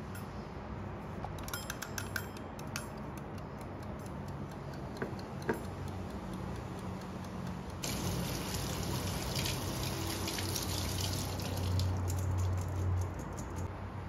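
A wind-up kitchen timer being twisted by hand, a quick run of clicks as the dial is set. From about eight seconds in, tap water runs onto mushrooms in a mesh strainer as they are rubbed clean by hand, and it stops about a second before the end.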